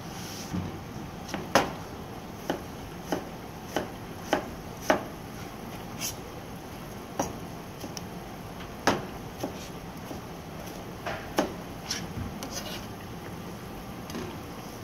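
Chef's knife cutting Korean radish on a plastic cutting board: sharp, irregular taps of the blade on the board, roughly one every half second to second, with short pauses between.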